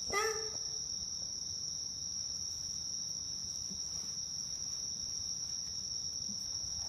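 Crickets trilling in one steady, unbroken high-pitched chorus. A brief voice cuts in just after the start.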